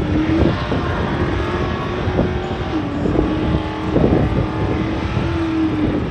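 Small-block Chevy V8 of a drag truck at full throttle on a pass, running loud with its engine note holding nearly steady and dipping slightly about three seconds in.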